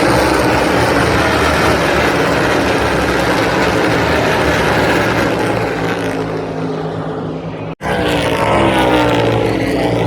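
NASCAR Cup Series stock cars' V8 engines at speed passing by, each note falling in pitch as the car goes past. The sound drops out for an instant about three-quarters of the way through, then another car passes with the same falling note.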